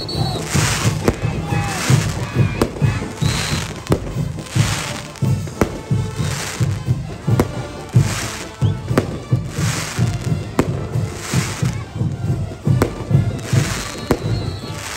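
A brass band plays a saya caporal with a steady bass beat. Over it, the bells on the caporales dancers' boots jingle together in rattling bursts roughly once a second as the dancers stamp in step.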